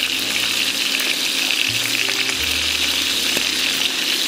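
Bone-in lamb pieces searing in hot lard in a frying pan, with a steady sizzle and crackle: the heat is high enough to brown the meat rather than stew it.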